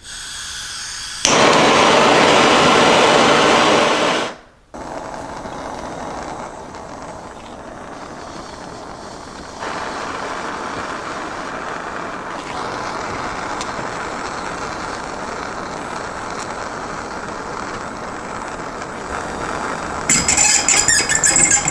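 Handheld plumbing gas torch burning with a steady hissing flame as it heats a soldered copper joint to melt the solder holding an old valve. The flame runs louder for the first few seconds after it is lit, and a burst of clattering comes near the end.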